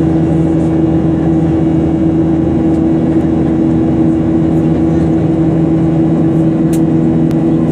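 Cabin noise inside a Boeing 737-800 in flight: a steady rush of airflow with a constant low drone from the CFM56-7B turbofan engines.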